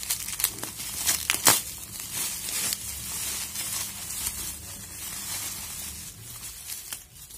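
Bubble wrap being crumpled and pulled off a small packaged item, plastic crinkling and crackling in sharp bursts. It is loudest in the first couple of seconds, then settles into softer rustling.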